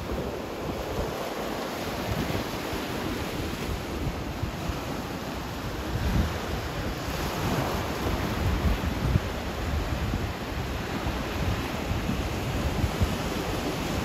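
Ocean surf washing into a rocky cove and breaking over the rocks, a steady roar that grows louder from about halfway through as a wave rolls in, with wind buffeting the microphone.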